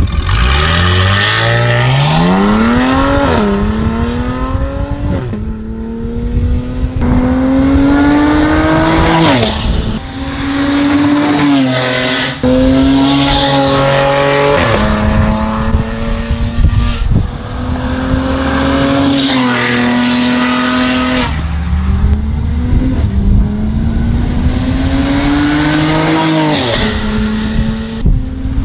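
Mercedes-AMG GLE43 Coupe's twin-turbo V6, loud through an Armytrix catless valved exhaust, accelerating hard through the gears. Its note rises in several long pulls, each cut off by an upshift that drops the pitch, with steadier part-throttle stretches between them.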